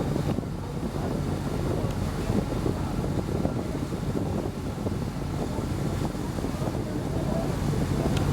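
Steady low drone of a vessel's engine running, with wind buffeting the microphone and water noise.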